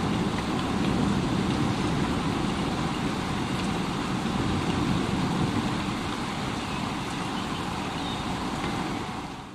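Thunderstorm: steady heavy rain with a low, continuous rumble of thunder underneath. It gets a little quieter after about six seconds and fades out quickly at the very end.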